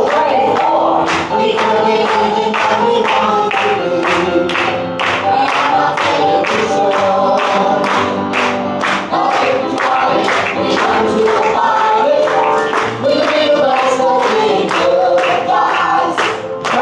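Music with a group of voices singing together over a quick, steady beat.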